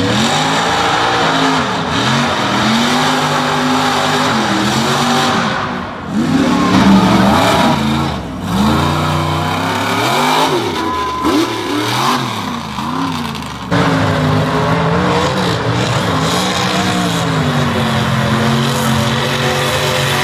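Lifted mud truck engines revving hard through a mud pit, their pitch rising and falling again and again, with abrupt jumps from one run to the next.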